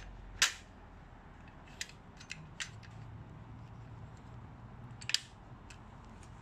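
Metal-and-plastic clicks and clacks from an AEG PSU1000 mitre saw stand's sliding saw-mounting arms being moved and set by hand. Two louder clacks come about half a second in and about five seconds in, with lighter clicks between and one more near the end.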